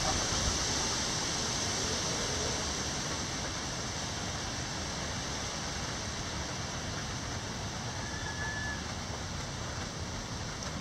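Steady heavy rain falling: an even, unbroken hiss of downpour.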